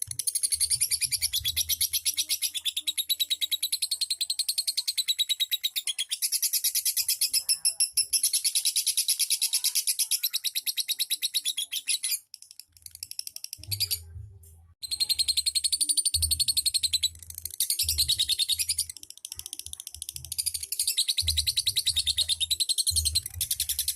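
Lovebird singing in long runs of very rapid high chattering, the trilling song keepers call ngekek, broken by a short pause about halfway through.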